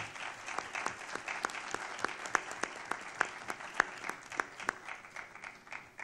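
Applause from a seated conference audience and panel: a dense patter of many hands with some sharper single claps standing out. It stops abruptly at the very end.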